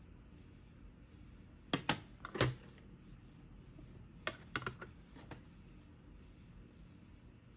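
Light clicks and taps of plastic Petri dishes and their lids being handled on a bench during an agar transfer. There is a cluster of clicks about two seconds in and another about four and a half seconds in.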